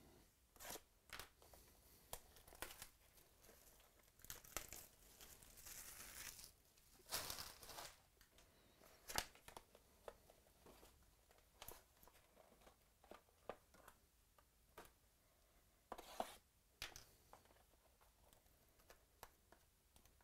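Faint, scattered handling of a trading-card box: a utility knife slitting the seal, then the cardboard lid pulled open and the packaging rustled, with short rips, crinkles and small taps. The longest tearing comes about four to eight seconds in.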